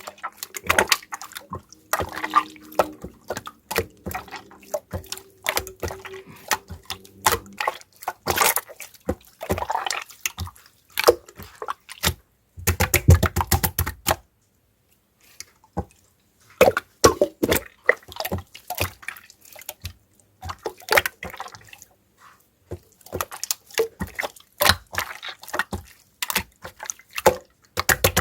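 Very watery clear slime being squished and worked, making dense, irregular wet clicks, pops and sloshy squelches, with a brief pause about halfway through.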